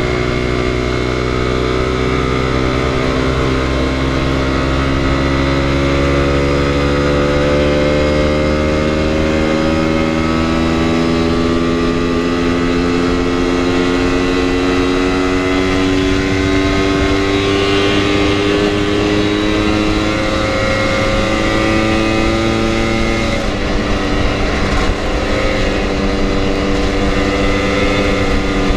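Lambretta scooter engine heard from onboard at road speed, its pitch climbing slowly as it pulls for about twenty seconds, then dropping at a gear change and settling again, with wind rumble on the microphone.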